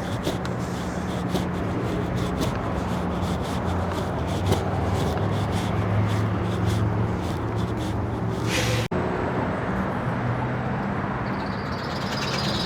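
Busy street traffic, with vehicle engines humming steadily under a general wash of road noise. A high, rapid chirping joins near the end.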